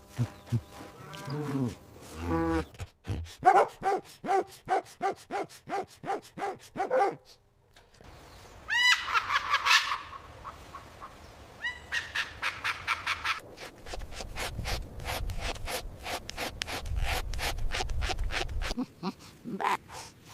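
A string of different animal calls one after another. There are repeated short pitched calls, a burst of high rising chirps about nine seconds in, rapid pulsing calls, and a low rumble in the later part.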